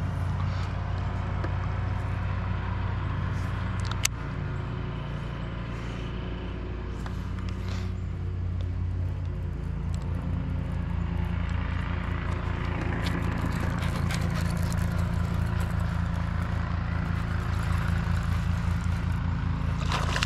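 Spinning reel being cranked in an even, fast rhythm while a lure is retrieved, over a steady low hum. A splash near the end as a chain pickerel strikes the lure at the surface.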